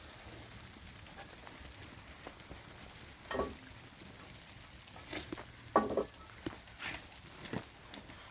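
Potato kuku frying in a pan with a steady low sizzle, while a utensil scrapes and knocks against the pan about five or six times, loudest about six seconds in.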